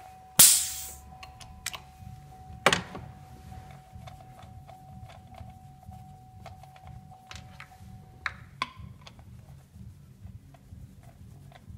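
A compression tester's pressure-release valve hisses briefly about half a second in as the gauge is vented after its reading. A second short burst follows about two seconds later, then scattered small clicks and knocks of hands working at the engine's ignition leads and the tester hose, over a low steady hum.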